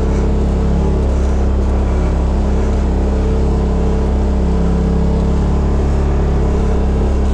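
2018 Polaris RZR XP Turbo's turbocharged twin-cylinder engine running at a steady pitch as the side-by-side drives along.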